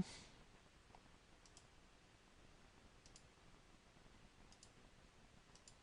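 Faint computer mouse clicks over quiet room tone: four quick double ticks, each a press and release, about one every second and a half.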